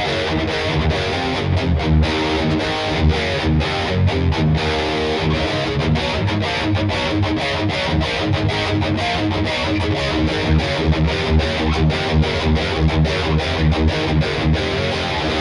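Schecter C-1 Hellraiser electric guitar played through a distorted amp tone, a choppy riff with many short breaks between heavy low notes.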